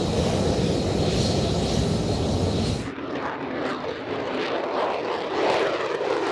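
F-35B jet engine running loud and steady. About three seconds in it cuts abruptly to a quieter rushing jet noise with a crackly texture.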